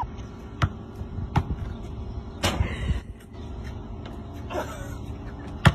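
A basketball bouncing on asphalt: several separate thumps, roughly a second apart, with the loudest near the end, over a low steady background noise.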